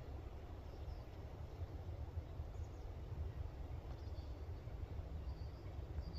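Outdoor ambience: a low, unsteady rumble with a few faint, short, high bird chirps scattered through it.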